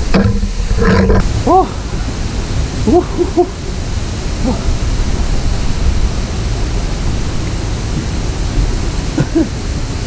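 Steady, loud rushing of a rocky mountain stream, with a few short grunts and breaths of effort from a man scrambling over boulders, about a second and a half in, around three seconds in and again near the end.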